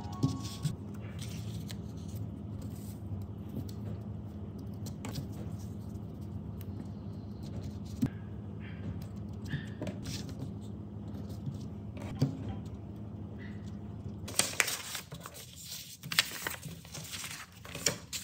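A low steady hum with a few light taps for most of the time; then, about fourteen seconds in, close crinkling and rustling of clear plastic sheet protectors being handled.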